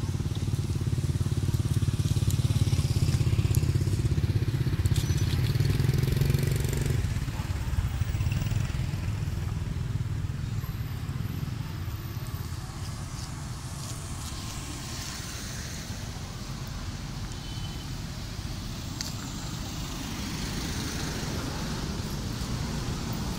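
A motor engine runs steadily nearby and stops or fades about seven seconds in, leaving a low outdoor rumble with a few faint clicks.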